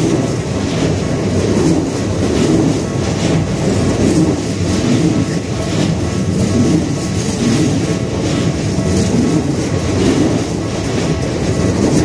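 Keikyu Main Line electric train passing close by. Its wheels clatter over the rail joints in a loose repeating rhythm over a steady rolling rumble.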